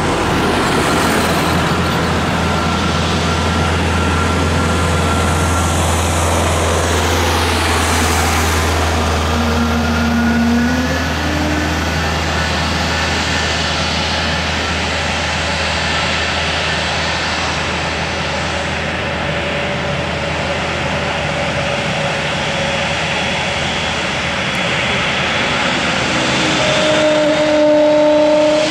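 Airbus A321neo's Pratt & Whitney PW1100G geared turbofan engines running at taxi power: a steady jet rumble and hum. Near the end a rising whine comes in and the sound grows louder as the engines begin to spool up.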